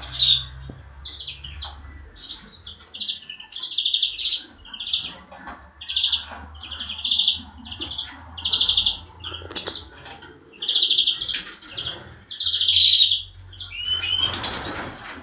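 European greenfinch (florya) singing in the free-running 'salma' style: rattling, trilled phrases repeated almost without a break. A louder, harsher burst comes near the end.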